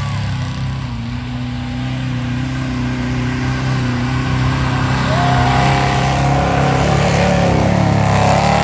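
Off-road rig's engine revving as it churns through loose sand, growing louder as it comes close and passes near the end.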